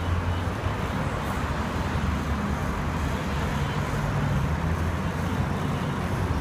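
Steady road traffic noise from a busy city street, with a low engine hum that swells and fades as vehicles pass.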